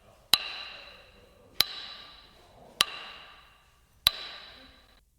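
Gym weights clanking together: four sharp clanks about a second and a quarter apart, each ringing and fading away.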